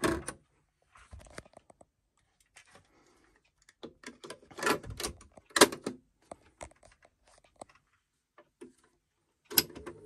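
Mechanical clicks and clunks from the piano-key cassette buttons of a National Panasonic RQ-551LJS boombox being pressed. The clicks are scattered, with the loudest clunks about halfway through.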